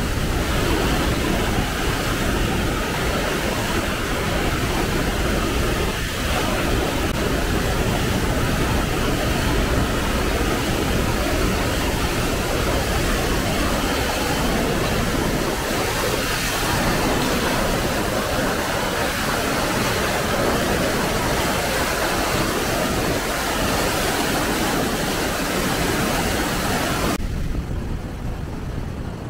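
Wapama Falls pouring heavy water over granite boulders: a loud, steady rush of falling and splashing water. Near the end the hiss fades, leaving a duller, lower rush.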